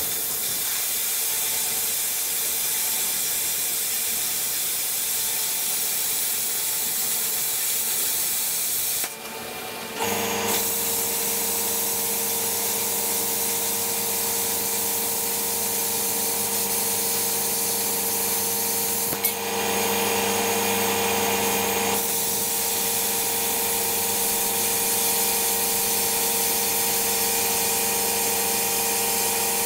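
Plasma cutter cutting through the steel side plates of a loader bucket: a steady hiss with a constant hum under it. The cut stops briefly about nine seconds in, then starts again.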